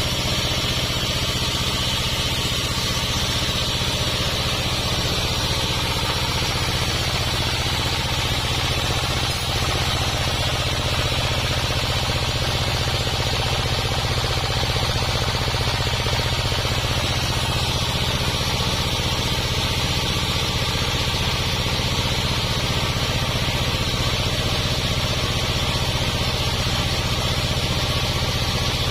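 Homemade sawmill running steadily, an even engine-like hum with a steady high hiss above it and no change in pace.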